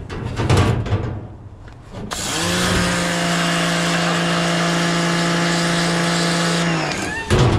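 HiKOKI FAW110 pressure washer starting up about two seconds in. Its pitch rises briefly to a steady motor hum with the hiss of the water jet, and it stops near the end.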